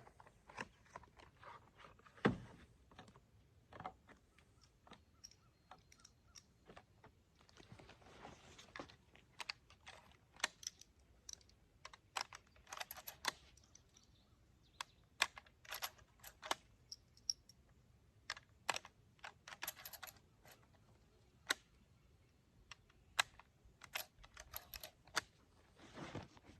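Faint, scattered small clicks and taps of a lever-action rifle and its red dot sight being handled on a bench, with one heavier knock about two seconds in.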